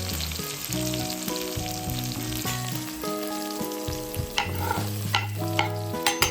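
Food sizzling in a hot frying pan while being stirred, with a utensil knocking and scraping against the pan several times from about four and a half seconds in.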